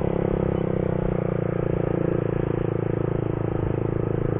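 Motorcycle engine running at a steady cruising speed, an even drone that neither rises nor falls, with road and wind noise.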